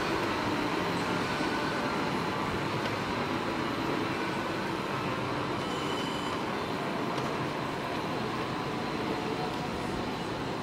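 Steady rolling rumble of an electric skateboard's wheels on asphalt while cruising, mixed with wind noise, holding an even level throughout.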